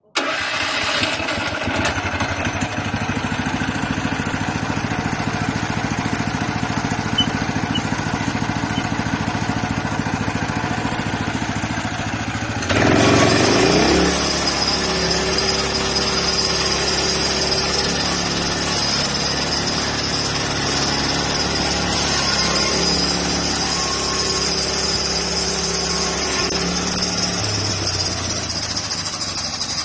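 Small gasoline engine of a portable sawmill running steadily. About 13 seconds in it revs up sharply and carries on at higher speed, with a high whine added.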